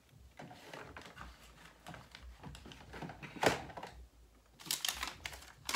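Paper being handled on a desktop: soft rustling with scattered light taps and clicks, the sharpest about three and a half seconds in and a few more near the end.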